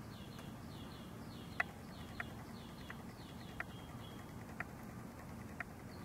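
Night creatures calling: a run of short falling chirps, about three a second, with a sharp click roughly once a second, over a low steady hum.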